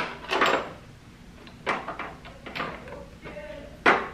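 A handful of irregular knocks and clacks as small hard objects are picked up, moved and set down on a countertop, with a louder knock near the end.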